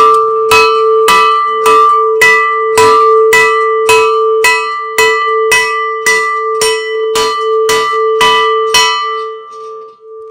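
Temple bell rung over and over, about two strikes a second, one note that keeps ringing between strikes. The strikes stop near the end and the note rings on, fading.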